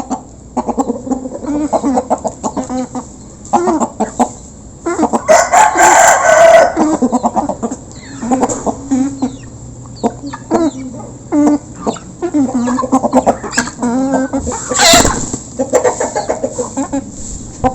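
A flock of village chickens (ayam kampung) clucking and calling continuously as they feed. A rooster crows loudly about five seconds in, and there is one sharp knock near the end.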